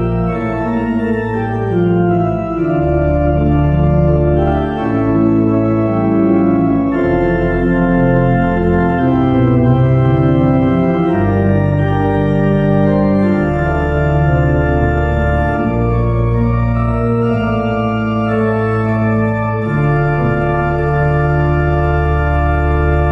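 Organ music playing slow, held chords over a bass line that changes note every second or two.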